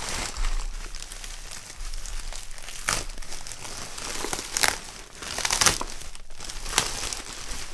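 Plastic courier mailer bag and bubble wrap crinkling and rustling as a bubble-wrapped package is worked out of the bag, with several sharper crackles.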